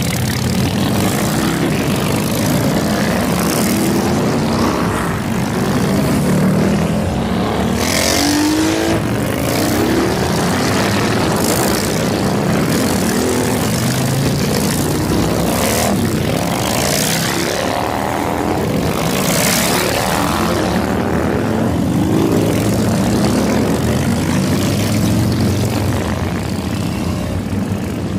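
A procession of cruiser motorcycles riding past one after another, their engines running in a continuous drone. Engine pitches rise and fall as each bike goes by, with a swell every second or two as the nearest ones pass close.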